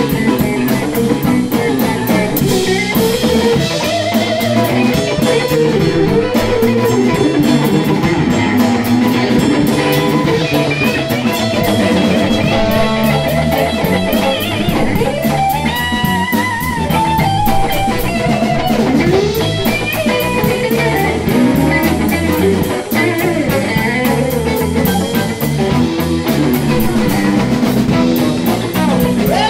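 A live blues band playing an instrumental stretch: two electric guitars over a drum kit, with the lead guitar bending notes around the middle.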